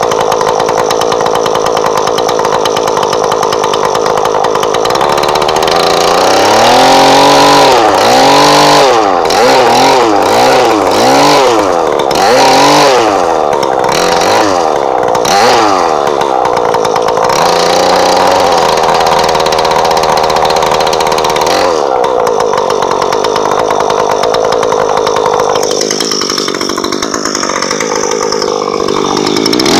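Straight-piped two-stroke engine of a Husqvarna 336FR brushcutter running. It idles steadily at first, then from about six seconds in it is revved up and let fall back repeatedly, about once a second. After that it settles to a steadier run with a few more blips.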